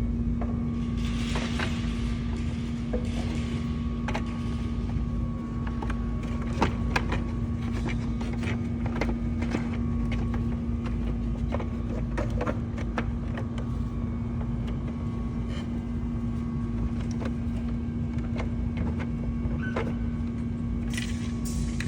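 A steady mechanical hum, with many small clicks and knocks scattered over it.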